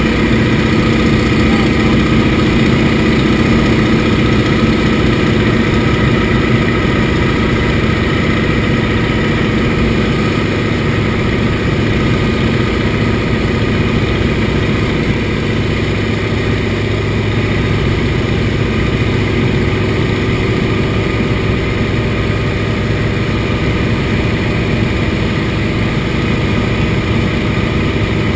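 An Antonov An-2's nine-cylinder radial engine and propeller droning steadily in cruise, heard from inside the cockpit. The note shifts slightly and the level eases a little about ten seconds in.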